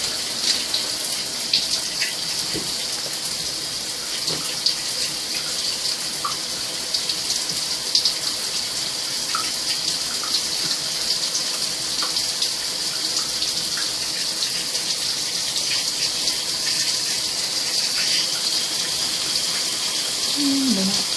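HotelSpa temperature-sensor shower head spraying water steadily, an even hiss with scattered small droplet ticks.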